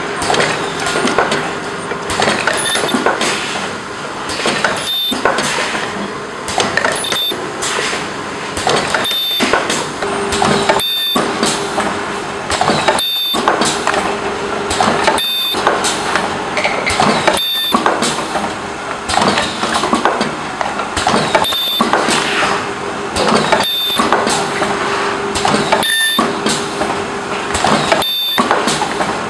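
Semi-automatic ultrasonic tube filling and sealing machine running through its cycle: a steady mechanical noise with a hum. About every two seconds it is cut by a brief gap and a short high-pitched tone as the turntable indexes the tubes.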